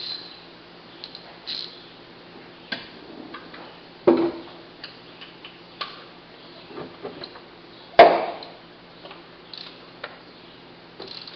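Hand tools on a Buick V6 engine while a spark plug is taken out with a socket: scattered metal clicks and ticks, with two louder clanks about four and eight seconds in.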